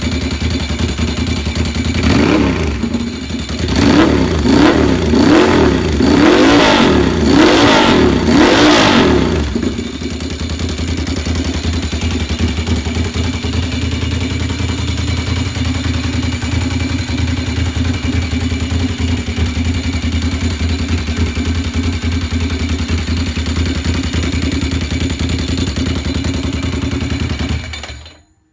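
1997 Ducati 748's L-twin engine running with no exhaust cans fitted: blipped up and down several times between about two and nine seconds in, then idling steadily until it cuts off near the end.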